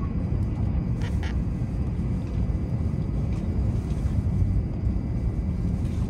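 Steady low rumble of the cabin of a W7 series Hokuriku Shinkansen train, with a couple of faint clicks about a second in.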